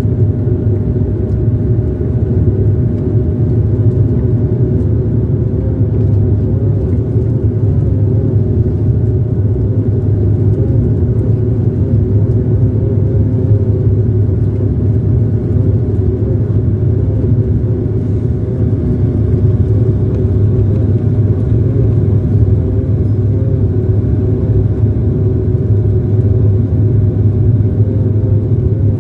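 Steady low drone of an airliner's engines heard inside the passenger cabin as the plane comes in to land, a deep hum with a few steady tones above it and no sudden changes.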